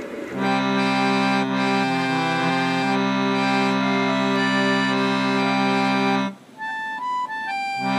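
Background music of long held chords, coming in about half a second in; about six seconds in the chords drop out, leaving a few single higher notes.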